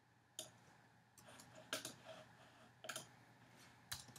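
Faint clicks of a computer mouse and keyboard, about half a dozen, some in quick pairs.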